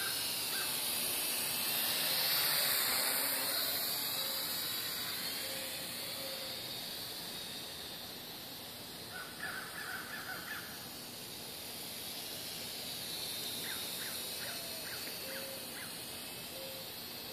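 WLtoys V959 quadcopter in flight: its four small electric motors and propellers make a continuous high whine that wavers in pitch as the throttle changes. It is loudest about two to three seconds in as the drone passes close.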